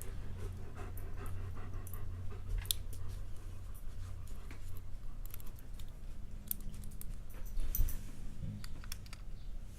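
Scattered light clicks and ticks of small padlock parts being handled as its pins and springs are picked out, over a low steady hum.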